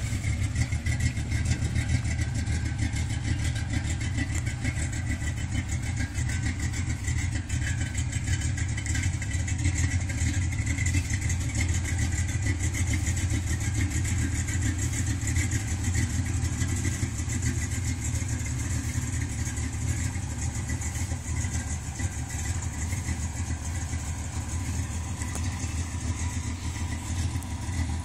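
1979 Ford pickup's 351 Windsor small-block V8 idling steadily through a Flowmaster exhaust, a deep, even sound with no revving.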